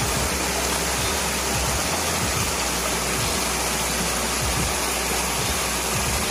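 Rocky forest stream rushing over boulders and small cascades: a steady, even rush of water.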